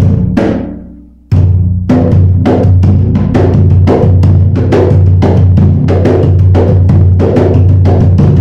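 Atabaque hand drum played loudly with bare hands: one open stroke that rings and dies away, then about a second in a steady, fast rhythm of hand strokes, several a second, over the drum's sustained deep ring.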